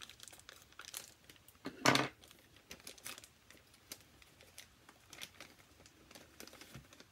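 Clear plastic packaging bag crinkling as it is cut open with scissors and handled: a run of short crackles, with one louder rustle about two seconds in.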